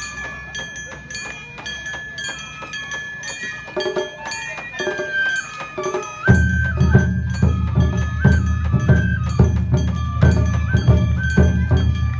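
Japanese festival dance music typical of an Awa Odori troupe: a high held melody over steady rhythmic ticking strikes, with heavy drums coming in about six seconds in and the music getting louder.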